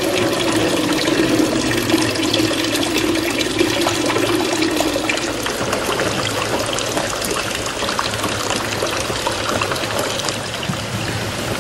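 Water pouring and splashing, with a steady run of small splashes and drips.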